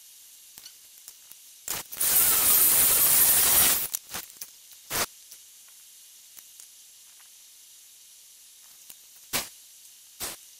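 A watercolour brush rasping on textured paper: one loud scrub lasting about two seconds starts about two seconds in, followed by a few short, scratchy strokes.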